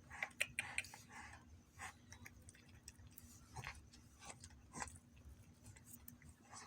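A cat eating, with faint irregular smacking and clicking chews, several close together in the first second and then scattered.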